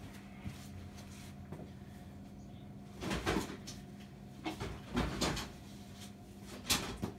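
Rummaging through stored gear for a small ratchet strap: a few short knocks and rattles of objects being moved, starting about three seconds in, over a steady low hum.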